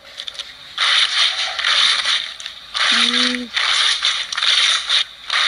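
Slime being squished and stretched, making dense, loud crackling and popping in two long stretches with a short break about three seconds in.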